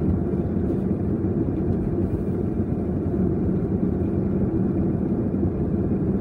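Steady low rumble of a vehicle's engine and tyres while driving along a road at even speed.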